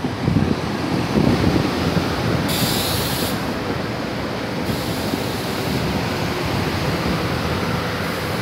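Pair of SEPTA Silverliner IV electric multiple-unit railcars rolling past as they slow into the station: a steady rumble of wheels on rail, with a few heavier knocks in the first second or so. A short hiss comes about two and a half seconds in.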